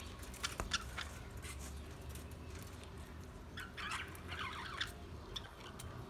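A flock of budgerigars chirping and warbling: scattered short chirps, with two longer warbling calls a little past the middle.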